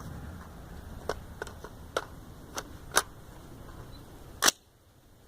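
Suppressed .300 AAC Blackout rifle with an AAC 7.62 SD suppressor firing subsonic 220-grain rounds: a string of short, quiet cracks and clicks roughly every half-second to second, the loudest near the end.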